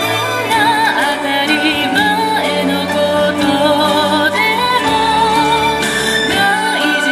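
Background song: a woman singing long held notes with vibrato over sustained instrumental accompaniment.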